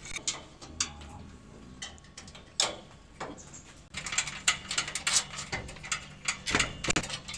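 Scattered metal clicks and knocks of steel bolts, nuts and frame members being handled and fitted together by hand while assembling a steel swing-bench frame. They are sparse at first and come thicker and louder from about halfway, with a couple of heavier knocks near the end.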